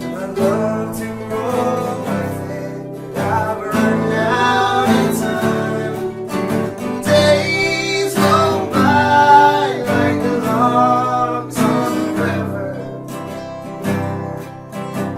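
Song with acoustic guitar strumming and a singing voice.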